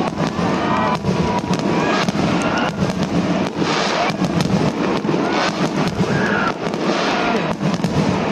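Fireworks display going off in rapid succession: many sharp bangs and crackles overlapping continuously.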